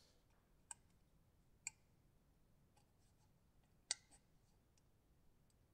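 Near silence broken by a few small plastic clicks and taps, the loudest about four seconds in: fingers working at the stiff battery door of an Iron Man bust's light-up helmet.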